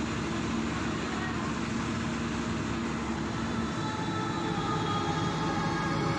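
Heavy machinery running with a steady mechanical rumble. About two-thirds through, the low hum drops away and higher steady tones come in.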